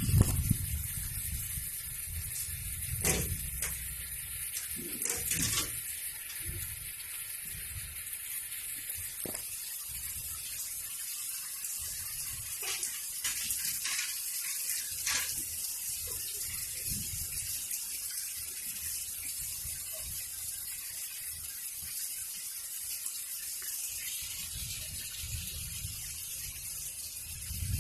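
Heavy rain falling steadily, an even hiss, with a few low thumps in the first several seconds.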